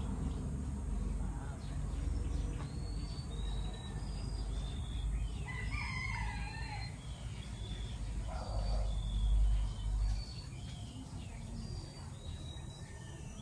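A rooster crows once, about six seconds in, over many short high bird chirps and a low rumble that swells about nine seconds in.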